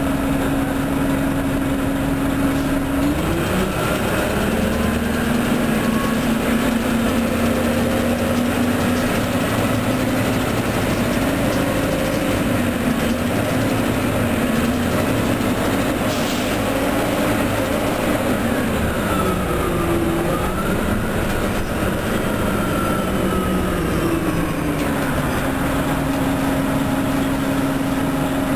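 Orion transit bus's diesel engine and drivetrain: a steady idle drone, then about three seconds in the pitch drops and wanders as the bus works through acceleration and gear changes, with a whine gliding up and down around the middle. Near the end it settles back to the same steady idle drone.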